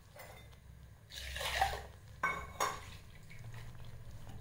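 Water being poured into a curry in a clay pot: a splash of liquid about a second in, followed by two sharp knocks.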